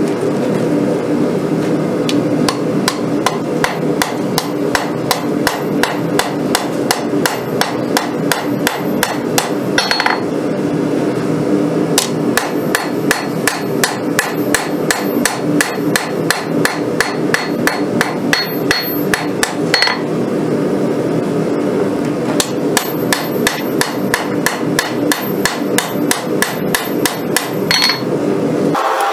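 Hand hammer striking red-hot steel on an anvil as a rail spring clip is forged out into a blade: quick, steady blows, about three a second, with two short breaks, one about a third of the way through and one about two thirds. A steady low hum runs underneath.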